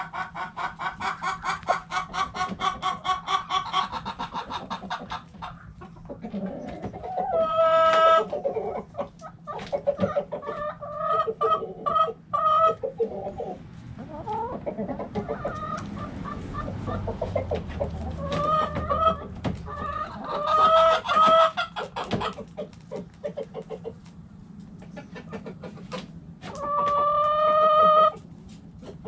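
Backyard hens clucking in a coop: a fast run of clucks at the start, scattered clucks throughout, and several longer drawn-out calls, one of the loudest near the end.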